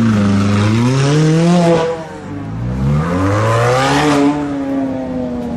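Supercar engines accelerating hard, revving up twice: the first climb cuts off about two seconds in, and the second rises again, then levels off and eases toward the end.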